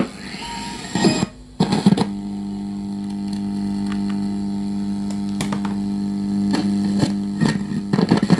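A radio's loudspeaker giving a steady, loud buzzing hum with a row of overtones, after a short dropout with clicks about a second and a half in, and with scattered crackles running through the hum.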